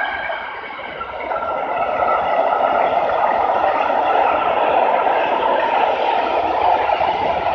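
Freight train of tank wagons rolling past, its wheels running steadily on the rails with a few faint steady high tones over the noise; the level dips briefly about half a second in.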